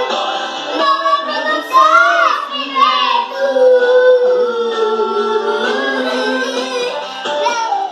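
Children singing a gospel song over music, holding a long note in the middle and sliding between pitches.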